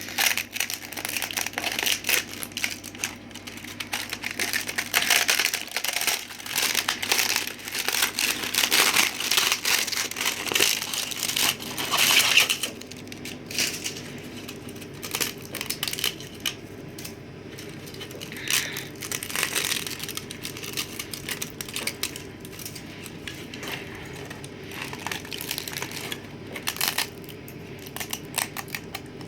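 Plastic support material being peeled and snapped off a 3D-printed mask: dense crackling and clicking for about the first twelve seconds, then scattered clicks and snaps.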